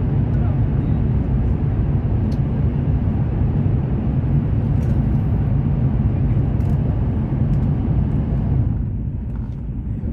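Steady low rumble of a CR400BF-Z Fuxing high-speed train running at speed, heard inside the passenger cabin. The hissier upper part of the noise falls away near the end, leaving the low rumble.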